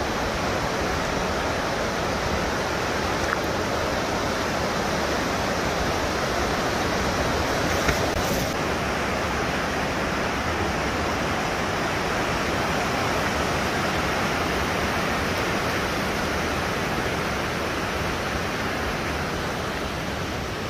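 Steady rush of running water, an even loud noise with no breaks.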